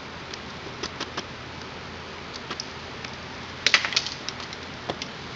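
Light clicks and taps of hands working the float-bowl drain screw at the bottom of a youth ATV carburetor, with a quick cluster of sharper clicks a little before four seconds in.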